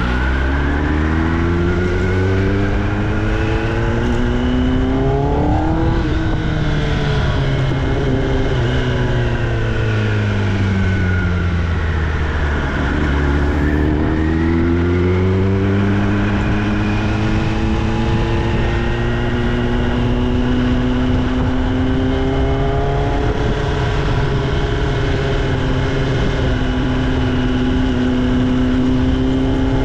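Kawasaki ZX-10R's inline-four engine through an Austin Racing aftermarket exhaust. The revs climb for about six seconds, fall away for several seconds, climb again, then hold nearly steady through the second half.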